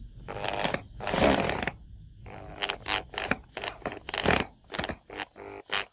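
Electric drill run in short, irregular bursts, driving a screw into the corner of a steel angle-iron frame.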